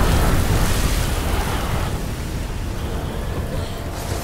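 Storm wind and sea spray blasting in through a ship's opened cabin door: a loud, steady rush of wind and water, strongest at the start and easing off slightly.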